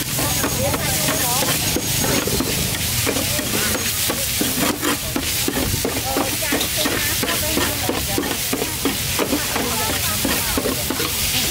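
Metal spatula scraping and tossing short stir-fried noodles across a flat stainless-steel griddle tray, with quick, irregular scrapes and clinks over steady sizzling.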